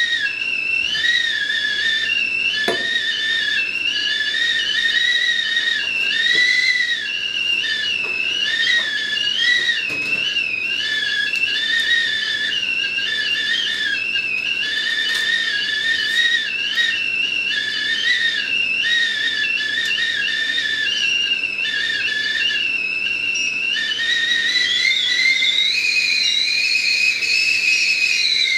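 Enamel stovetop whistling kettle whistling at the boil: a loud, wavering whistle sounding several pitches at once, rising slightly in pitch and getting a little louder near the end.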